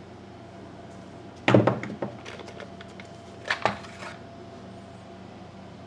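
Hard plastic knocks and clatter as the top cover of a 1975 Poulan Wood Shark chainsaw is worked loose and lifted off: a sharp clatter about a second and a half in, a few light clicks, then a smaller knock about three and a half seconds in.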